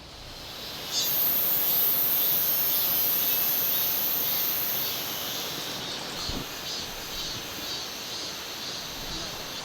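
Summer insects calling: a loud, very high-pitched steady drone for about four seconds, then a pulsing song of about two to three pulses a second, over a steady hiss of background noise.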